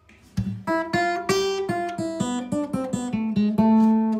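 Background music: an acoustic guitar playing a run of separate picked notes, starting about half a second in.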